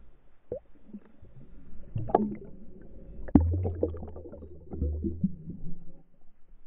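Muffled underwater knocks and clicks on a GoPro in its waterproof housing: a cluster about two seconds in, then a sharp knock followed by a low rumble lasting about two seconds.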